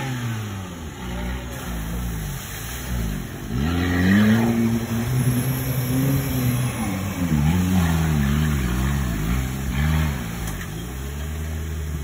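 Off-road competition 4x4's engine revving under load, its pitch jumping up about three and a half seconds in and rising and falling repeatedly, then settling to a steady lower note near the end.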